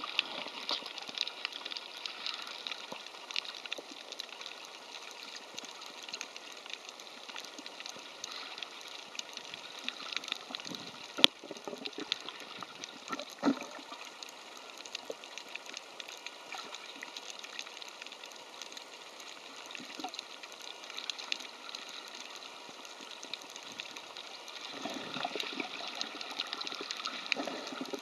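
Underwater water noise on a coral reef: a steady crackling hiss full of fine ticks, with one sharp click about eleven seconds in and louder, lower sloshing near the end.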